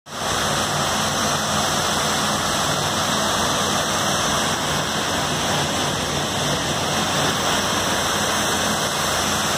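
Steady rush of water cascading down the walls of a World Trade Center memorial reflecting pool into the basin, a loud even roar with no breaks.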